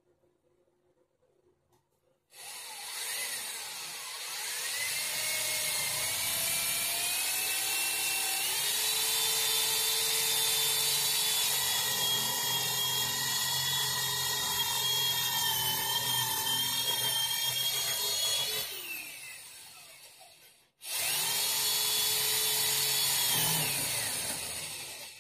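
Electric drill boring into a wooden cabinet frame, likely for a keyed cabinet lock. Its motor speeds up over the first few seconds and runs for about eighteen seconds, winds down, stops briefly, then runs again for a few seconds near the end.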